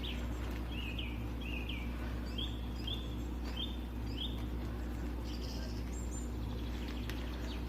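Small birds chirping, a string of short chirps about every half second to a second, over a steady low hum.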